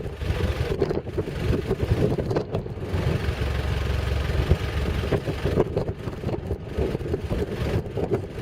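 Low, rough vehicle rumble with wind buffeting the microphone.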